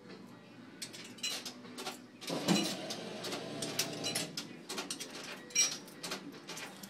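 Robotic ice cream vending machine at work: a run of clicks and knocks, with a motor hum about two and a half seconds in as the freezer lid lifts open for the suction-cup arm.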